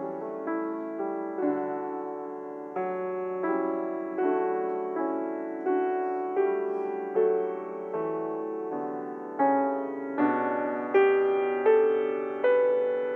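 Piano playing slow, sustained chords at an even pace, each struck and left to die away. It grows louder near the end.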